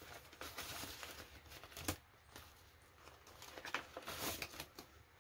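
Paper banknotes rustling as they are handled and slid into a clear plastic zipper pocket, with soft crinkling of the plastic and a light click about two seconds in.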